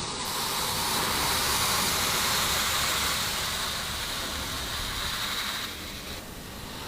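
A steady hiss that fades out near the end.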